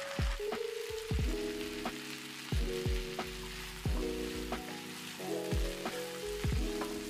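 Butter sizzling in a frying pan as spaghetti and sliced mushrooms are tossed with silicone tongs. It plays under background music with held notes and a steady low beat, which is the loudest thing heard.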